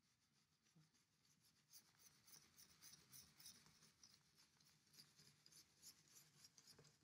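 Faint scratchy rubbing of a dry paintbrush scumbling paint onto paper, in quick repeated strokes that pick up about a second and a half in.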